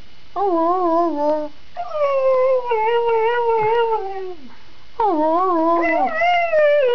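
A husky howling in long, wavering tones: three howls in a row, the last held on past the end, its 'singing' when asked to sing.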